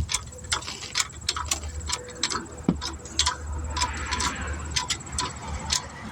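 Rapid, even mechanical clicking, about three to four clicks a second, over a low wind rumble.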